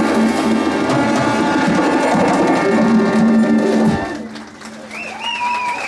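Live band music with drums, held notes cutting off about four seconds in as the piece ends, followed by a few calls from the audience.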